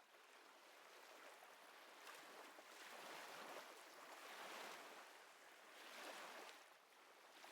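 Near silence: only a faint, soft hiss that swells and fades every second or two.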